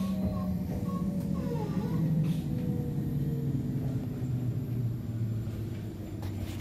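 Tokyo Metro 07 series train's VVVF inverter and traction motors whining, several tones sliding steadily down in pitch over a running rumble as the train slows under braking.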